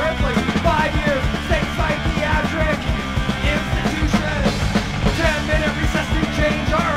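Rock band recording played from a vinyl record: busy drumming over a steady bass, with a melodic line sliding up and down in pitch above.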